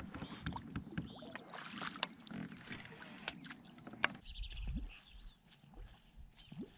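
Fishing kayak moving slowly on calm water, with faint water sounds at the hull and scattered small clicks and knocks from the boat and its gear. A brief low rumble comes about halfway through.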